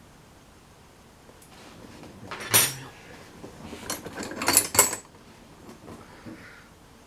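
Old steel spanners and hand tools clinking and clattering against one another as they are rummaged through: a sharp clatter about two and a half seconds in, then a quick run of clinks a second or two later.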